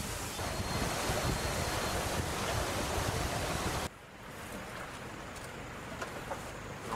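Steady rushing noise with no clear pitch. It drops suddenly to a quieter rush a little after halfway.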